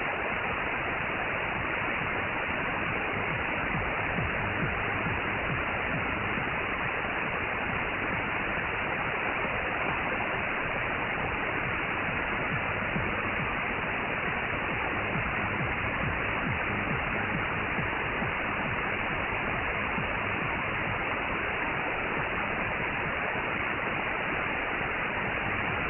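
Steady shortwave hiss and static from a Perseus SDR receiver tuned to 15795 kHz in synchronous AM. The pirate station's carrier is on air with no programme on it: dead air between transmissions.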